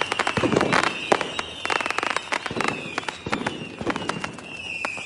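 Fireworks going off: a rapid, uneven series of sharp bangs and crackles, with high whistling tones that fall slightly in pitch running over them.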